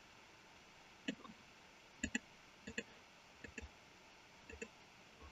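Computer mouse clicking faintly: short clicks, mostly in close pairs, about once a second from a second in.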